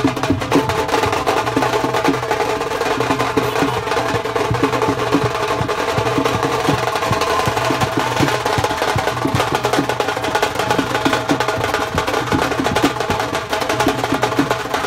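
Music driven by fast, continuous drumming and percussion over steady held tones.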